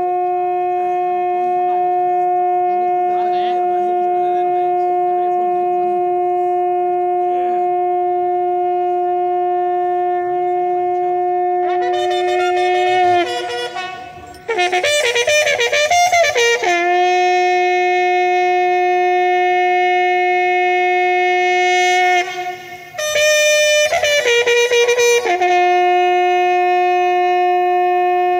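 A bugle-like horn holds one long steady note. About twelve seconds in it breaks into a short run of changing notes, returns to the held note, and does so again for a moment near the end before the long note resumes.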